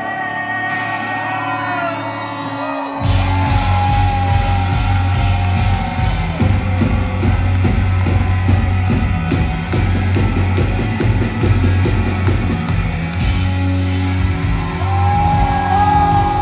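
Rock band playing live. A sung line over a quieter passage, then the drums and full band come in hard about three seconds in with a steady beat, and the voice returns near the end.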